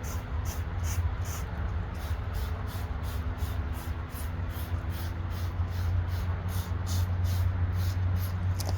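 500-grit sandpaper being worked over a plastic headlight lens: a steady abrasive hiss with a regular scratching pulse about three times a second, over a steady low hum.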